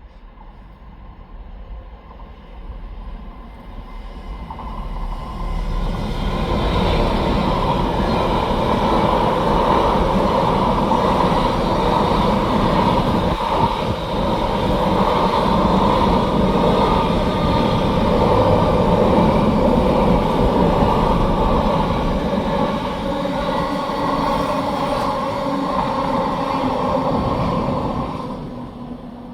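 A Class 66 diesel locomotive and its freight train passing. The sound builds over the first several seconds, holds loud and steady as the wagons roll by, then drops away sharply near the end.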